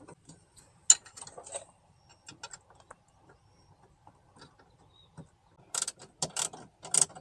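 Metal clicks and rattles of a mounting screw being worked into a power-window motor inside a car door. There is a sharp click about a second in and a quick run of louder clicks near the end.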